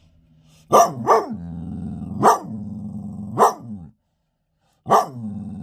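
A dog barking in sharp single barks, five in all, with a low growl held between barks; it breaks off briefly about four seconds in, then barks again.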